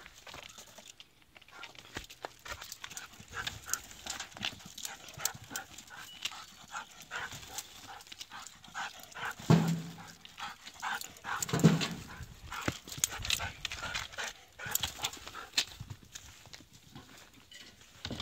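A dog working around a tree through grass and brush after a squirrel: steady rustling and crackling, with two short low barks about halfway through.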